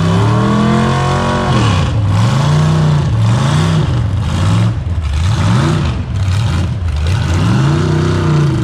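Truck engine under full load in a truck pull, dragging the weight sled down the dirt track. Its pitch climbs over the first second and a half, then repeatedly drops and rises again about once a second as the revs swing up and down.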